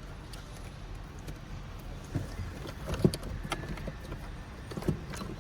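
Hands handling car wiring connectors and dashboard trim: scattered clicks and a few short knocks, the loudest about three seconds in.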